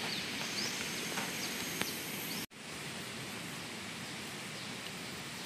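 Outdoor forest ambience: a steady hiss with a few faint bird chirps in the first half. It cuts out for an instant about two and a half seconds in, then carries on.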